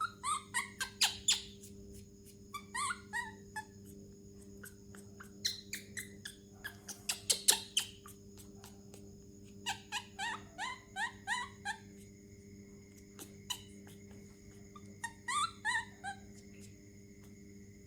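Baby monkey squeaking in repeated bouts of short, high, rising chirps, with pauses of a few seconds between bouts. Light sharp clicks run in between.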